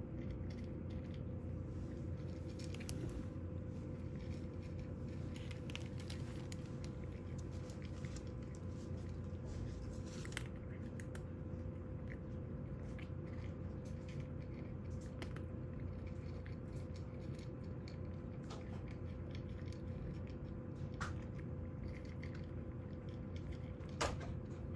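Cat chewing dry kibble: irregular small crisp crunches over a steady low hum, with one sharper click near the end.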